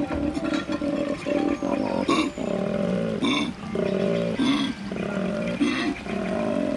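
A large animal calling in a series of low, pulsing growls, each lasting about half a second to a second.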